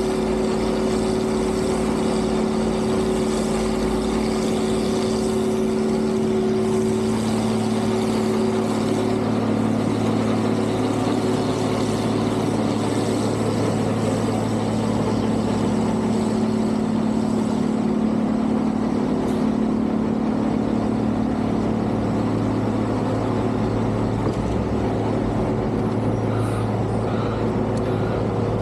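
Heavy engines of snow-removal vehicles running steadily, a continuous low hum whose pitch shifts slightly about a third of the way in.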